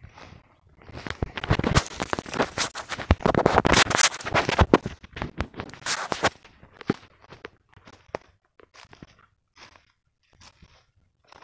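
Footsteps crunching and rustling through dry leaf litter and twigs on a forest floor: dense crackling for the first half, then only scattered snaps and crackles.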